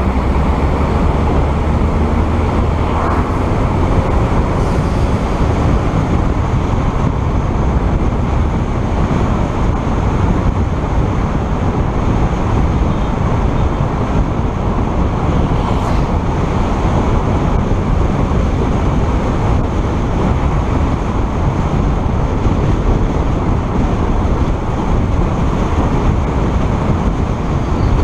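Steady rushing noise of a vehicle driving along a paved road at speed, a mix of tyre roar and wind noise.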